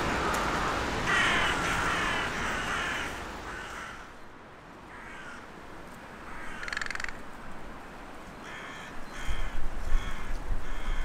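Hooded crows cawing: a quick run of hoarse caws about a second in, a few fainter calls in the middle, and another series of short caws near the end.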